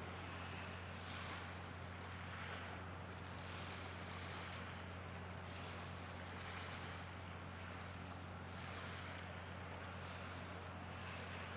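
Small waves lapping at the shoreline, swelling and fading about every second, over a steady low hum.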